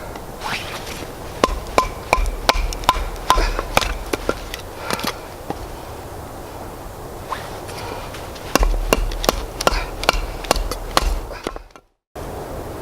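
Irregular sharp chopping knocks, some ringing briefly, in two runs with a pause between. Near the end the sound cuts out for a moment, then a steady rushing noise follows.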